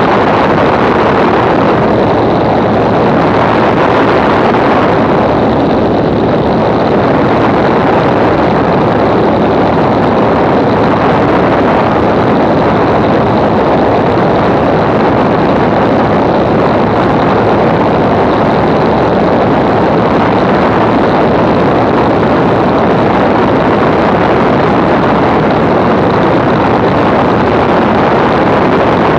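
The Walter Minor six-cylinder air-cooled engine of a Zlin Z-326 Trener Master running steadily in cruise flight. It is heard through loud, constant wind noise on an outside-mounted camera microphone.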